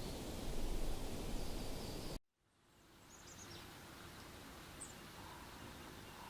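Steady outdoor noise that cuts off abruptly about two seconds in, then a quieter outdoor ambience fades in with a few faint, short, high bird chirps.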